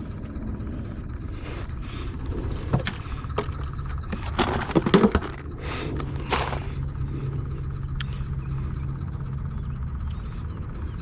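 Hands working a freshly caught bullhead catfish and fishing tackle: scattered clicks and knocks, with a cluster of loud rattling knocks about four to five seconds in, over steady low background rumble.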